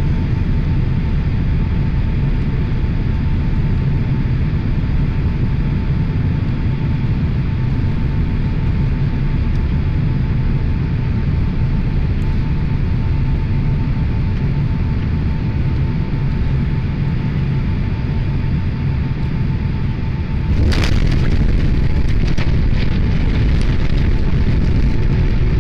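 Airliner cabin noise on final approach: a steady low rumble of engines and airflow with a faint steady whine. About twenty seconds in, the main gear touches down with a sudden knock, and the noise turns louder with scattered rattles as the plane rolls on the runway.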